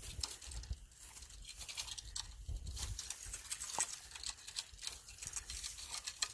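Irregular close crackling and rustling, the handling noise of a surf-casting rod and spinning reel being worked while a hooked fish is played.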